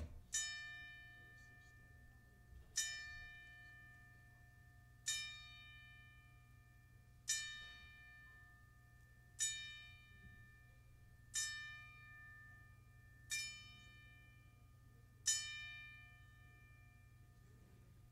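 Ringside timekeeper's bell struck with a small hammer, eight evenly spaced strikes about two seconds apart, each ringing out and fading: part of a ten-bell count, the combat-sports salute for someone who has died.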